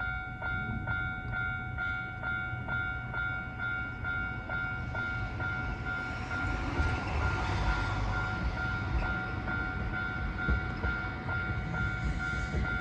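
Japanese level crossing's electronic warning bell ringing, an even two-tone ding about twice a second. Beneath it the rumble of an approaching Kintetsu train grows louder from about halfway through.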